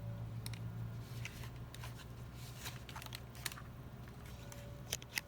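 Scattered light clicks and taps from handling a swollen, split-open laptop battery pouch, over a low steady hum. Two sharper clicks come near the end.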